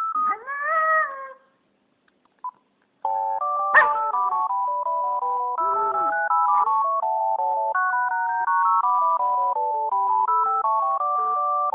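A mobile phone plays a simple electronic ringtone-style melody in steady beeping notes, stopping briefly and starting again about three seconds in. A Japanese Spitz howls along with it: a rising and falling howl in the first second, and a shorter, lower howl about six seconds in.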